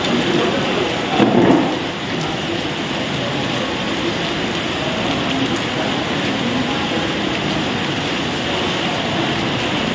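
Steady rain falling, with a brief louder sound about a second in.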